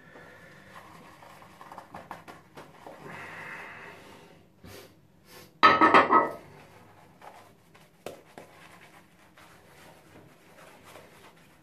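Shaving brush working lather over a shaved scalp: soft brushing and scrubbing, with one louder short burst about six seconds in.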